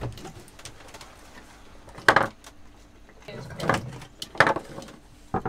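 A dog knocking and pushing its bowl around on a wooden floor, with a few separate clattering knocks: a loud one about two seconds in, several more in the second half and one near the end. It is the dog's way of asking for food.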